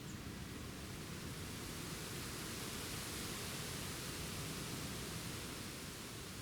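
Steady outdoor background hiss, with no distinct bird calls.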